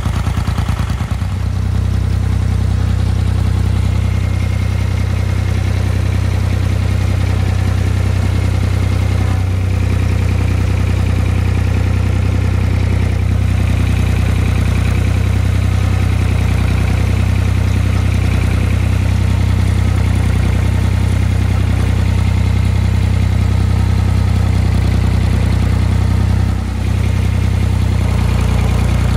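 Compact farm tractor's engine running at a steady speed, heard from the operator's seat, with a brief dip in level near the end.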